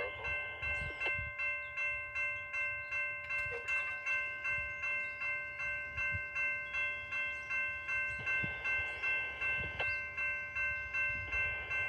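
Railroad grade-crossing bell ringing rapidly, about three strikes a second, over the low rumble of a passing passenger train.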